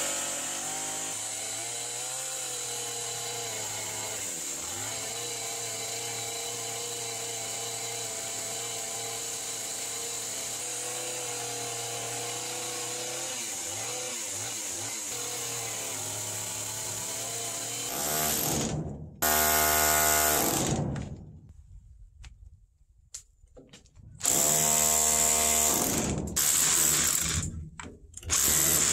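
Chainsaw running steadily as its bar plunge-cuts a mortise upward into an overhead timber beam. About 18 seconds in it gives way to a Makita power drill run in several short bursts, each one speeding up, as it bores out the mortise in a wooden post.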